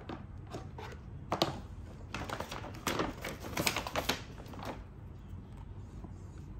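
Hand rummaging in a kraft paper shopping bag: a run of crisp paper crackles and light clicks, busiest from about two to four seconds in.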